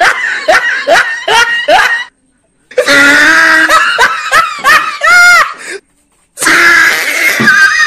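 Loud wordless vocal outbursts from a person: short rapid cries or laughs, about two to three a second, each rising in pitch, with one longer high held cry about five seconds in. Two brief dead-silent breaks interrupt it.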